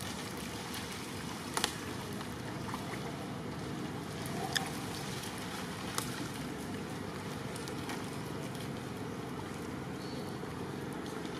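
Steady rush of flowing stream water running over rocks, with a few faint clicks.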